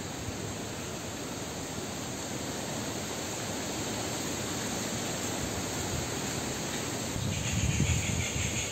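Steady hissing noise that slowly grows louder, with a few low knocks near the end.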